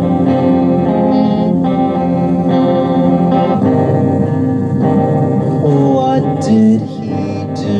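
A guitar playing an instrumental passage of a song, its chords changing about once a second.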